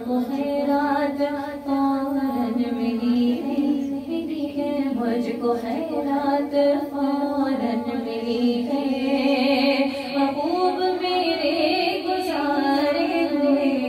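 A woman singing a naat, a devotional song in praise of the Prophet Muhammad, into a microphone, in long held notes that bend and glide in pitch.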